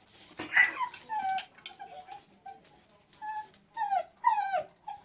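Dog whining in a rapid run of short high cries, about two or three a second, many falling in pitch.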